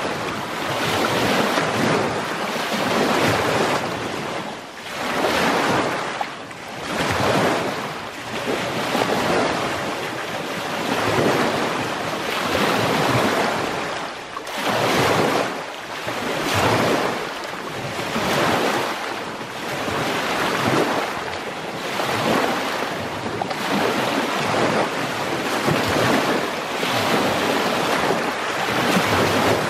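Small lake waves breaking and washing over a shallow rocky shore close by, in repeated surges that swell and ebb every second or two.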